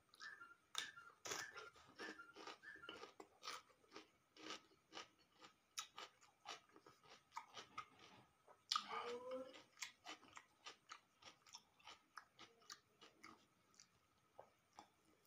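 A person chewing crunchy raw vegetables and omelette close to the microphone: quiet, repeated crunches two or three a second, with a short hum about nine seconds in.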